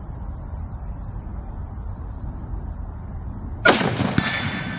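A single rifle shot from a Henry X Model lever-action .30-30 firing a Hornady LEVERevolution round: one sharp, loud crack near the end, a second fainter crack about half a second later, and a fading echo.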